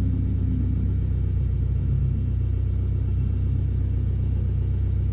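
The Mooney M20J's four-cylinder Lycoming engine running steadily at low power, heard as an even, low drone inside the cockpit while the plane lines up for takeoff.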